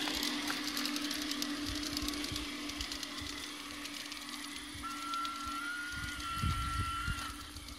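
A train running: a steady hum with small clicks, and from about five seconds in a whistle-like tone held for about two and a half seconds.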